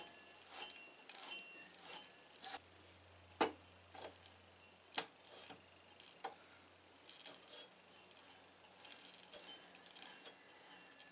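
Light clicks and taps as a wooden blank is turned by hand onto the threaded stud of a stopped wood lathe's spindle, with a sharper knock about three and a half seconds in. Scattered small metal knocks and clinks follow as the steel tool rest is set against the blank.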